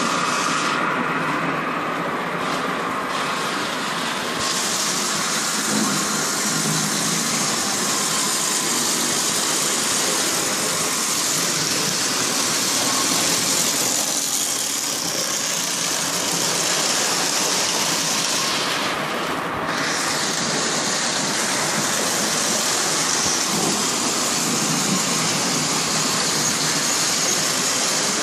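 Lionel model trains running on three-rail steel track: a steady noise of metal wheels rolling and electric motors running.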